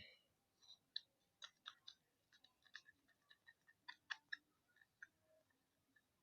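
Faint, irregular sticky clicks of slime being mixed.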